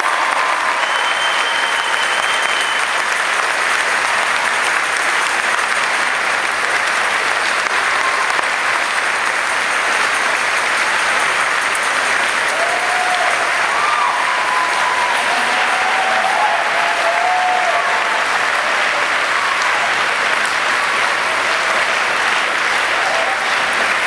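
Large audience applauding: a steady, sustained ovation of many hands clapping at once.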